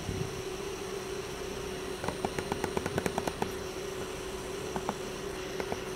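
CNC machine handwheel being cranked by hand, giving a quick, even run of small detent clicks about two seconds in, then a couple of single clicks near the end, over a steady machine hum.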